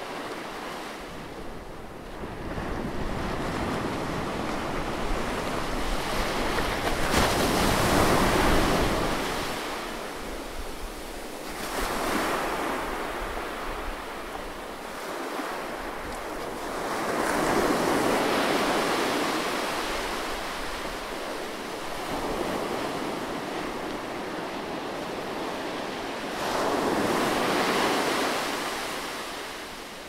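Ocean surf breaking and washing onto a sandy beach. The sound swells and fades every few seconds, with four louder surges.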